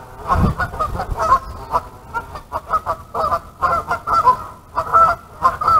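Geese honking, many short calls overlapping and answering one another throughout. A low thump sounds about half a second in.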